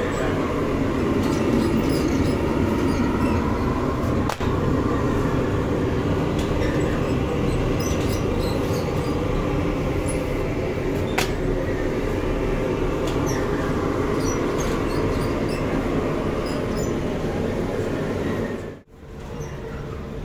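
Rotating-hearth bakery oven for taftoon flatbread running with a steady mechanical rumble. It cuts out briefly near the end.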